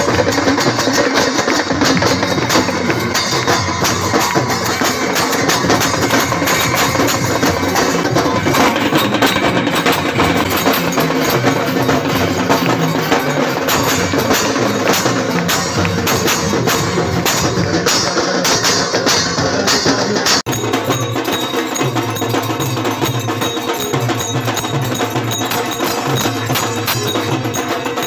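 Loud devotional aarti music from a crowd, with dhol drumming, percussion and rhythmic hand-clapping. The sound changes abruptly about twenty seconds in.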